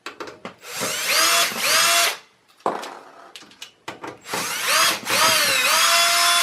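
Power drill driving Phillips screws out of the back of a computer case, the power supply's mounting screws. It runs twice, each time spinning up in pitch and then holding steady, with a click or two in between.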